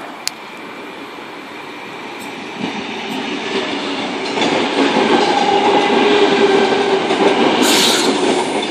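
A Tangara electric train (a Sydney Trains double-decker) arriving at the station, running close past and growing louder over the first five seconds or so. From about halfway through a steady whine sits under the rumble of the wheels, and a short hiss comes near the end.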